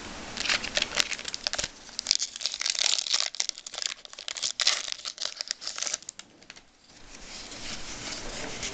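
Foil wrapper of a hockey trading-card pack being crinkled and torn open by hand, in dense irregular crackles that ease off briefly a little past the middle.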